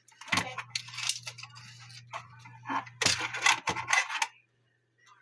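Metal wristwatch being picked up and handled on a hard surface: a few sharp clinks and scrapes, with the last of them about four seconds in.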